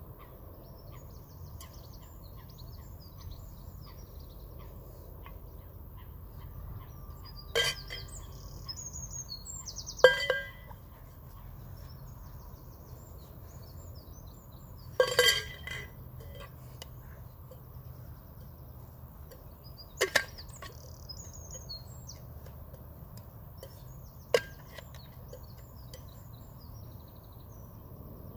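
Flair bartending bottle and metal shaker tin clinking against each other as they are caught and stalled: five sharp clinks several seconds apart, the one in the middle ringing briefly. Birds chirp faintly throughout.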